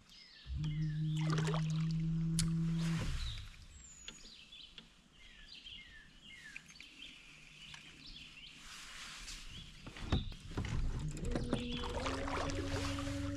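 A bird calling over and over in short, downward-sliding chirps, over a quiet background. Near the start a steady low hum runs for about two and a half seconds and is the loudest sound. Near the end a low steady tone comes in and steps up in pitch.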